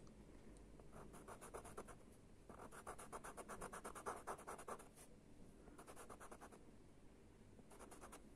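Faint scratching of a purple CarbOthello pastel pencil on Pastelmat card, quick short strokes in several bursts as colour is worked into a drawn eye.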